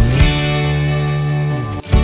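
Background music led by guitar, with sustained notes and a brief break near the end.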